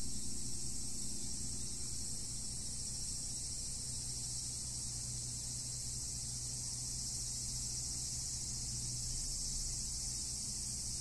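A dense chorus of insects making a steady high-pitched buzz, over a low steady hum.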